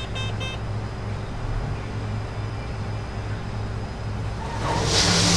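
Combine engine running steadily, with a couple of quick high beeps right at the start. About five seconds in, a much louder rushing hiss and a pulsing hum come in as the unloading auger is run after its drive chain was repaired.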